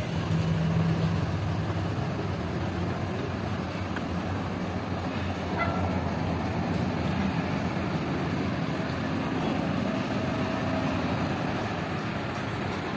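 Steady vehicle rumble, with a low engine hum strongest at the start.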